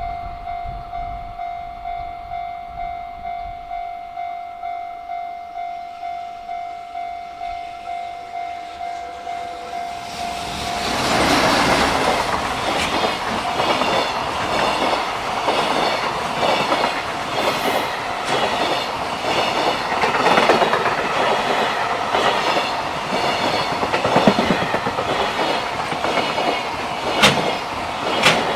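Japanese level-crossing warning bell ringing in a steady repeated ding, a little over once a second. About ten seconds in, a JR Freight freight train arrives and passes, its wagon wheels clattering over the rail joints in a steady rhythm, with a few sharp clicks near the end.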